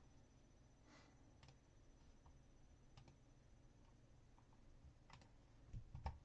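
Faint, scattered clicks and taps at a few isolated moments, with a louder knock near the end, over quiet room tone.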